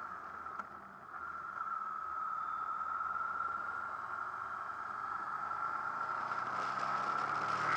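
Wind rush and engine noise of a Honda VFR800 VTEC V4 motorcycle at road speed, picked up by a camera mounted on the bike, with a steady high tone running through it. It gets louder from about a second in, and the engine note rises near the end.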